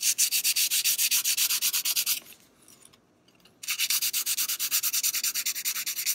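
Small scrap of sandpaper rubbed rapidly back and forth by hand over the outside of an old wooden straight-razor scale, about nine strokes a second. The strokes come in two runs with a pause of about a second and a half between them. The sanding is meant to take off only a little of the grime.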